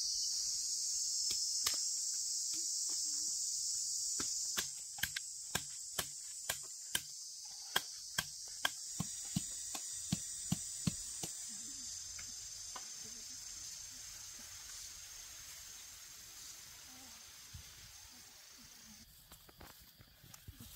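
Steady, high insect chorus that drops in level about four seconds in and then slowly fades. From about four to eleven seconds, a run of sharp clicks sounds, roughly two a second.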